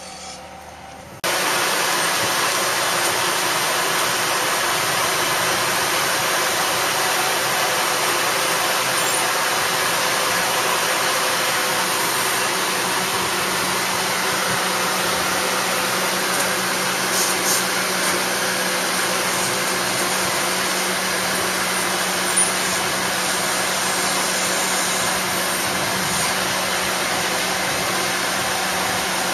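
Boatyard travel lift's engine running steadily with a constant hum while it lowers a sailboat hanging in its slings. It starts abruptly about a second in.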